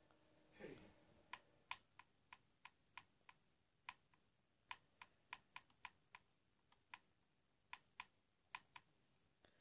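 About twenty faint, sharp clicks of remote-control buttons pressed in quick, uneven runs while skipping through video on a TV.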